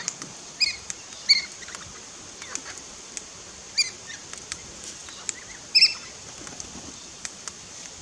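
Parrots at a backyard feeder giving short, sharp calls, about five of them, the loudest a little before six seconds in, over a steady high hiss and scattered faint clicks.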